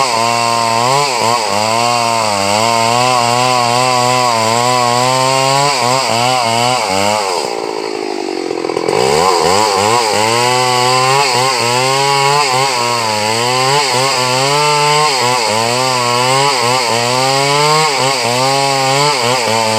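Chainsaw running hard as it cuts through wood, its engine pitch wavering as the chain bites; about halfway through the pitch drops away and climbs back up.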